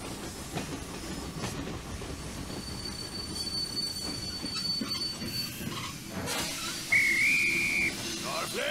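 Steam train pulling into a station and coming to a stop: a steady rumble of the carriages with a thin high squeal of the wheels partway through. About seven seconds in, a louder high squeal lasts about a second as it halts.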